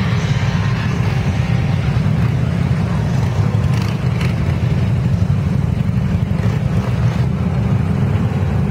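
A procession of touring motorcycles rolling slowly past one after another, their engines making a steady, deep, continuous rumble.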